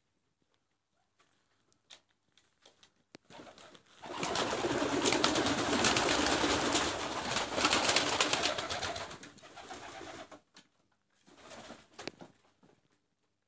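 Silesian shield pigeons at close range: cooing, with a loud flurry of wing-flapping and rustling about four seconds in that lasts about six seconds, and a shorter, fainter flurry near the end.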